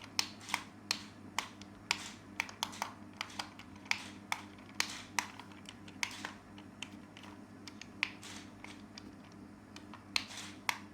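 Irregular sharp clicks and taps, at times several a second, over a faint steady low hum.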